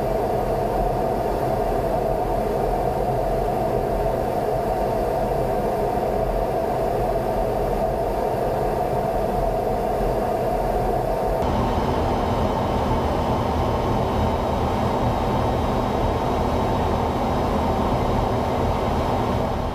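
Steady in-flight noise inside an F-15 fighter jet's cockpit, a continuous roar of engines and airflow with a steady tone over it. About halfway through it changes abruptly to a similar roar with a lower tone.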